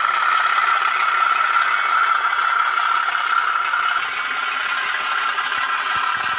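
Tinny, steady diesel engine sound of a Class 37 played through the small speaker of an N gauge model's LokSound V4 DCC sound decoder, with a rattle. It gets slightly quieter about four seconds in.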